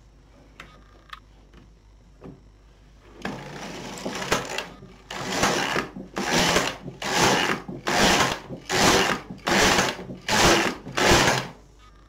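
Single-bed domestic knitting machine carriage pushed back and forth across the needle bed, knitting rows of waste yarn. After a few small clicks, one longer pass about three seconds in is followed by about eight quick, even passes, roughly one a second.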